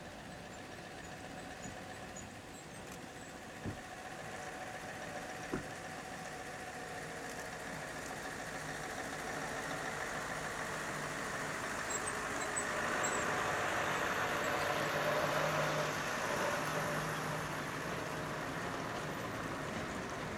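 Scania truck-and-trailer unit driving slowly up and past, its diesel engine and tyres growing steadily louder and loudest from about 13 to 16 seconds in. Two short knocks sound a few seconds in.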